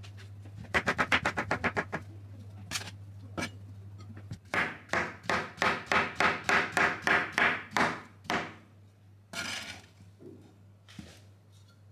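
Chef's knife chopping banana into rounds on a plastic cutting board. There is a quick run of about ten taps about a second in, then a steadier run of knocks, three or four a second, from about four to eight seconds in.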